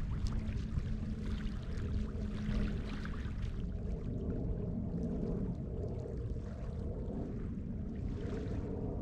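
Small waves lapping and splashing at the lake's edge, with a steady low rumble of wind on the microphone and a faint steady drone underneath.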